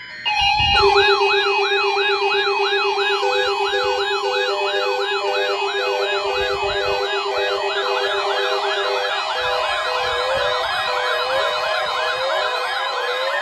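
Several NOAA weather alert radios sounding their alarms together, set off by the weather-radio test signal. Overlapping warbling siren tones repeat two or three times a second, mixed with steady tones and a pulsing beep. They start suddenly and loudly about a quarter second in.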